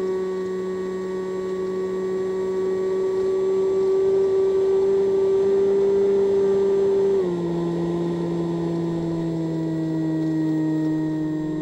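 Electric motor and pusher propeller of a Multiplex EasyStar model plane in flight, picked up by the onboard microphone: a steady whine that steps down to a lower pitch about seven seconds in.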